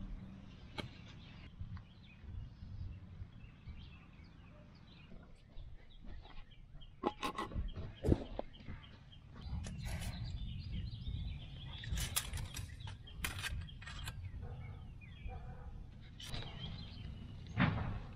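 Brick trowel tapping bricks into line against a level and handling mortar: scattered sharp taps and knocks, bunched up in the middle and near the end, over a steady low rumble.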